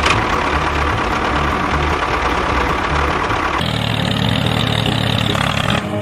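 Tractor engine running steadily, changing abruptly to a different engine sound about three and a half seconds in.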